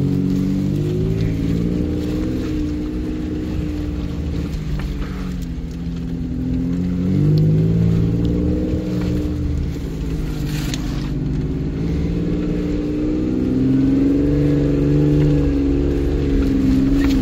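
An off-road 4x4's engine heard from inside the cabin while driving, running under load with its revs rising and falling, louder about seven seconds in and again near the end.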